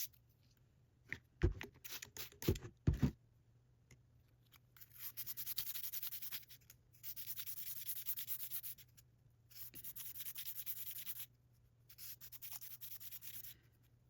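A few knocks, then hand polishing of a rusty metal tool: four spells of rapid back-and-forth rubbing, each about two seconds long with short pauses between.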